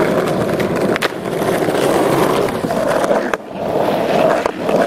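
Skateboard wheels rolling over asphalt: a steady rumble with a few sharp clicks, and a short lull a little past halfway before the rolling picks up again.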